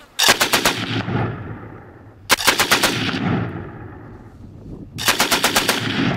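Three short bursts of automatic gunfire, each a quick string of about half a dozen shots with an echo trailing off after it; the bursts come about two seconds apart.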